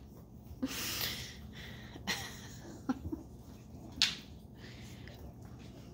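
Chihuahua puppies playing on a tile floor: a few scattered short scuffles and clicks, the sharpest about four seconds in.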